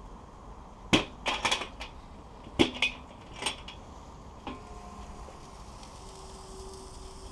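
Metal dome lid of a PRO-Q Excel 20 bullet smoker being handled and lifted off: a string of sharp clanks and knocks over a few seconds, the loudest about a second in and again past the two-second mark.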